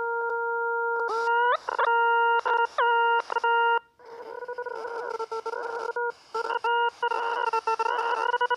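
Synthesized tones from the Desmos graphing calculator: a steady buzzy tone to start. About a second in comes a run of short tones that sweep up in pitch and cut off abruptly. From about four seconds the tone turns wavering and warbling, with brief dropouts.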